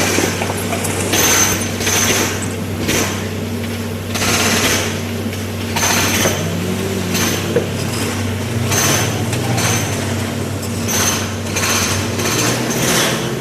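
Excavator's diesel engine running steadily, with short rushing bursts about every second or so on top of it. The engine's pitch swings up and back down about six seconds in.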